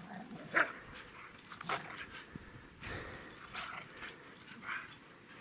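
Two dogs playing in the snow, giving a handful of short whines and yips about once a second.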